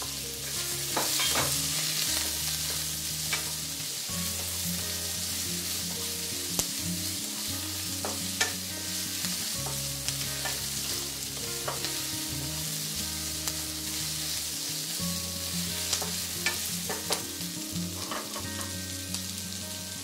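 Strips of spring onion and green and red pepper sizzling in hot oil in a non-stick wok, stirred with a wooden spatula that clicks and scrapes against the pan now and then.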